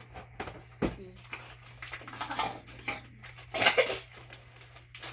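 Plastic snack pouch crinkling and being pulled open by hand, with a sharp knock about a second in and the loudest burst of crinkling near the end.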